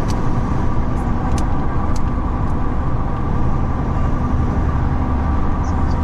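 Steady low road rumble of a moving bus heard from inside the cabin, with a few light rattling clicks in the first couple of seconds.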